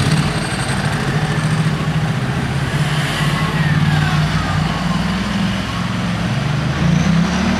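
Engines of a motorcycle, cars and a van running at low speed as they pull away and drive past, a steady low engine hum.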